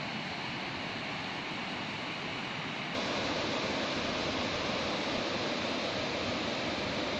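Steady rushing noise of a shallow river running over stones and gravel, mixed with wind, becoming suddenly louder about three seconds in.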